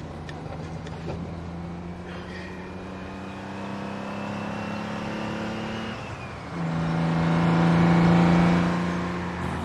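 Semi-truck diesel engine running under load, a steady drone that steps up and grows louder about six and a half seconds in, then eases slightly.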